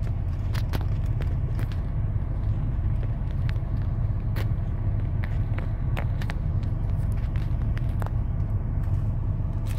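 Steady low hum of a car's idling engine, heard inside the cabin, with scattered small clicks and taps.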